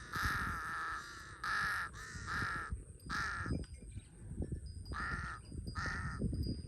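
Large-billed crow cawing repeatedly: about six harsh caws spaced unevenly, the first one the longest.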